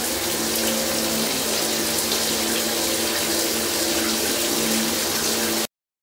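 Shower head spraying water, a steady hiss of spray that cuts off suddenly near the end. The flow has been restored after CLR dissolved hard-water calcium buildup in the shower's hot/cold mixing valve.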